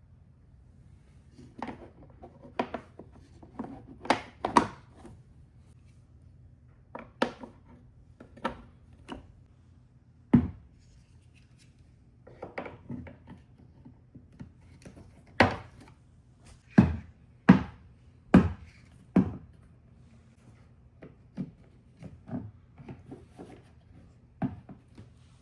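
Marbles rolling and dropping through a plastic TrixTrack marble run: irregular sharp clicks and clacks in clusters, a few much louder knocks, over a faint steady low hum.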